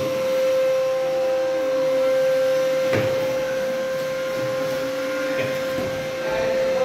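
A steady, unbroken hum from a running machine, with a broom's bristles brushing and knocking on a concrete floor, one sharper knock about three seconds in.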